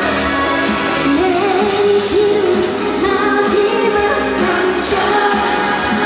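A woman singing a trot song live into a microphone over amplified backing music; her voice comes in about a second in.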